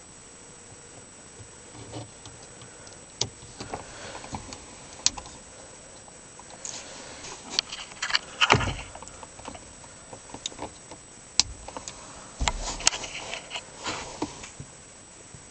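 Irregular clicks, knocks and rustling from someone shifting about inside a car's cabin while handling a camera, with louder thumps about halfway and two-thirds through.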